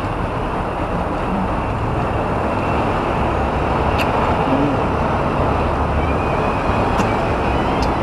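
Steady road traffic noise with a constant low rumble, and a few light clicks about halfway through and near the end.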